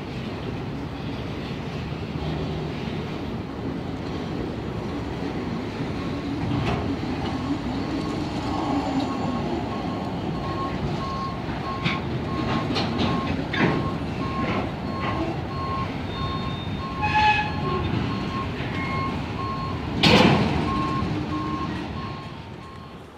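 Freight train of autorack cars rolling past with a steady rumble and wheel clatter. From about a third of the way in, a back-up alarm beeps steadily about twice a second, from the CSX hi-rail truck reversing on the track, and a loud clank sounds near the end.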